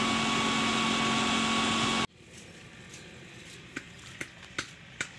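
A steady engine drone with a held hum, which cuts off suddenly about two seconds in. Then, much quieter, light regular footsteps on a paved path, a little over two a second.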